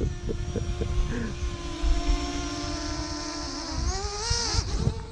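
Quadcopter drone's motors and propellers whining in flight at a steady pitch, which wavers and dips about four seconds in as the drone manoeuvres, over a low rumble.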